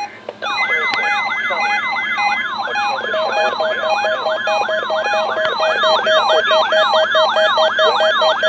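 Weather radio receivers' alert alarms sounding together, set off by the NOAA Weather Radio weekly test signal. Rapid, evenly repeating electronic siren-like sweeps, several at once, start suddenly about half a second in, and a steady tone joins them about three seconds in.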